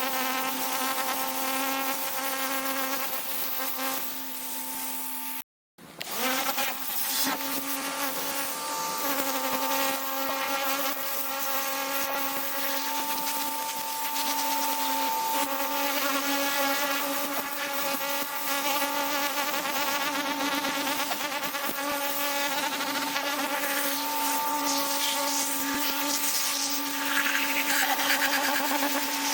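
Pressure washer running steadily, its motor and pump giving a buzzing drone over the hiss of the water spray. The sound cuts out completely for a moment about five and a half seconds in, then resumes.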